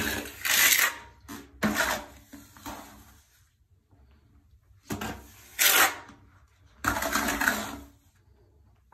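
Trowel scraping wet tile mortar out of a plastic bucket and spreading it onto the shower floor, in four scraping strokes with a short pause midway.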